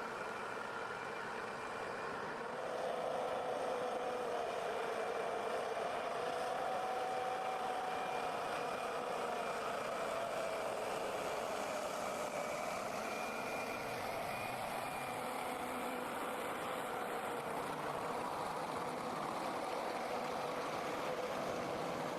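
Diesel engine of a forestry forwarder running steadily. It gets a little louder about two to three seconds in, and its pitch wavers slightly.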